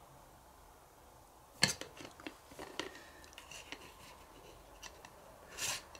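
Light clicks and taps of a clear plastic sweet jar and its lid being handled and fitted on, with a sharp click about a second and a half in and a short rustle near the end.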